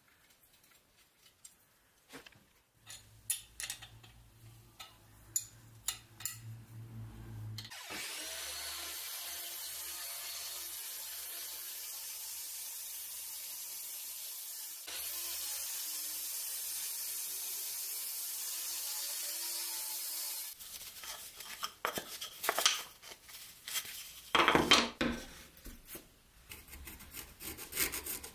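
Sliding miter saw running and cutting a block of wood: a steady whirring rush that starts about eight seconds in, gets louder about halfway through, and cuts off suddenly. Before and after it come scattered clicks, knocks and scraping from handling metal and wood.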